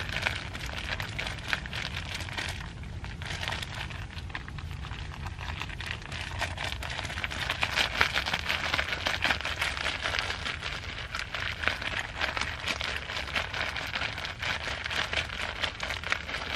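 Food sizzling and spitting in a pan over a campfire, a steady crackling hiss that grows louder about halfway through, with the fire's low rumble underneath.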